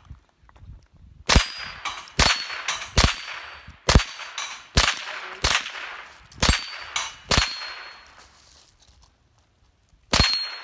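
About nine rifle shots from a .22 rifle at a steel plate rack, roughly one a second with a quicker run of three, then a pause and one more near the end. Many shots are followed by a short metallic ring as a steel plate is hit and knocked down.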